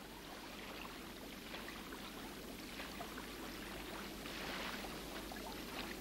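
Faint rushing of a fast river current: an even hiss of moving water with small crackles, swelling slightly about four seconds in.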